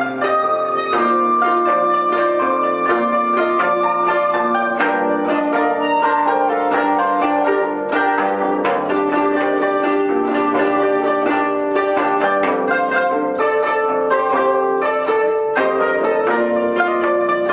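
Ensemble of koto, the Japanese 13-string zither, plucking interwoven melodic lines, with a shakuhachi bamboo flute holding long notes over them.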